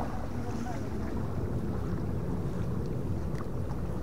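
Steady low rumble of wind buffeting the microphone, with a few faint ticks near the end.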